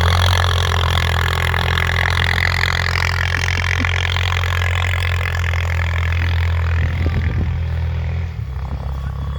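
Four-wheeler (ATV) engine running steadily while towing, with a steady rushing hiss over it that eases slightly near the end.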